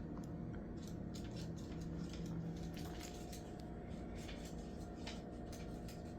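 Quiet room with a steady low hum and faint, scattered clicks and scratches as an African grey parrot clambers about.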